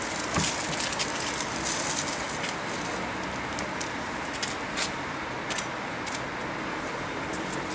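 Street ambience: a steady hum of distant traffic with scattered light clicks and rustles.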